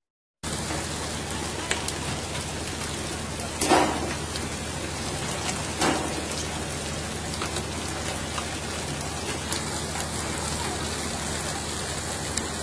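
Steady rushing hiss of water spray and sea along a pole-and-line fishing boat's hull. It cuts out briefly at the start, and two sharp thumps come about four and six seconds in.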